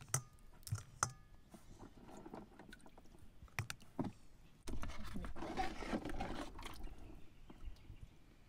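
Mussel shells knocking and clinking together a few times, a couple of the clinks briefly ringing, then water sloshing for a couple of seconds as the mussels are rinsed.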